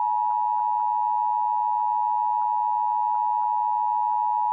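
Emergency Alert System attention signal: a loud, steady two-tone beep (853 and 960 Hz) that announces an emergency alert message on a TV broadcast.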